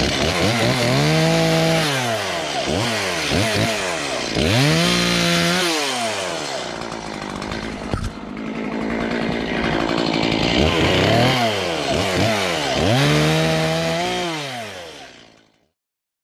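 Stihl MS170 two-stroke chainsaw cutting through branches, its engine revving up and dropping back several times, before the sound fades out near the end.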